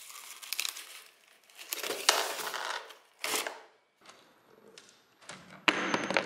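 Knocks and scraping on a corrugated-cardboard coin mechanism. About six seconds in, a coin drops onto the cardboard floor and wobbles, rattling, to rest.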